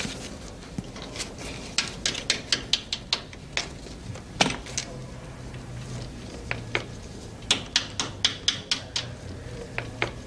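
Typing: irregular runs of sharp key clicks, several a second, with pauses between the runs, over a faint low hum.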